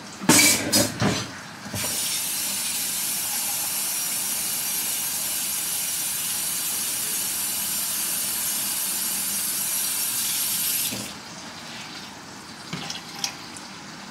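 Kitchen faucet running steadily, topping up a pot of water; it comes on about two seconds in and shuts off abruptly about eleven seconds in. A few clanks of cookware come just before it.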